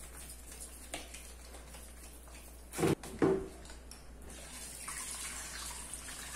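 Two knocks close together, then the kitchen tap turned on about four seconds in, with water running into a metal cooking pot holding raw chicken fillets.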